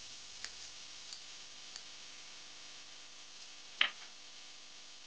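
Metal kitchen tongs clicking as they turn shrimp in a nonstick frying pan: three light clicks in the first two seconds, then one louder click near the end, over a steady faint hiss.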